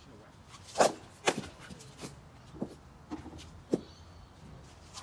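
Several sharp knocks from cricket throw-down practice: a cricket ball striking the bat and landing on the synthetic turf pitch, the loudest about a second in.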